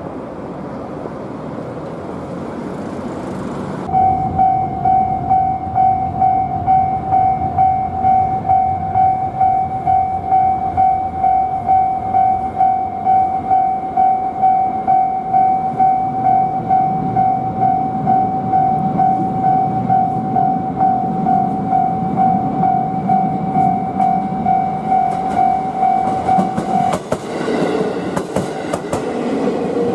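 Japanese level-crossing alarm ringing, a steady electronic bell tone repeating about twice a second, over the rumble of a train on the line. The bell starts about four seconds in and stops a few seconds before the end, after which train wheels clatter over the rail joints as it passes the crossing.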